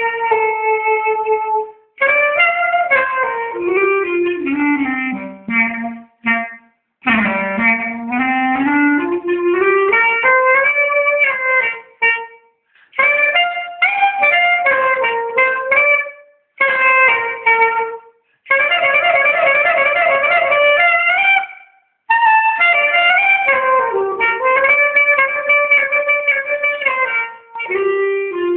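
Solo clarinet playing short melodic phrases separated by brief pauses, with falling and rising scale-like runs and, about two-thirds of the way through, a fast trill between two notes.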